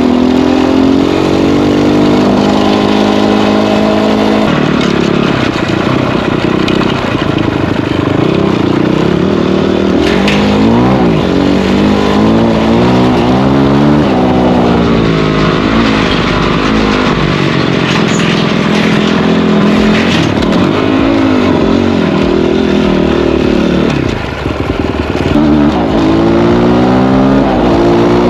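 Dirt bike engine running under way, its pitch rising and falling again and again as the throttle is opened and closed through the gears, over a steady rush of wind noise.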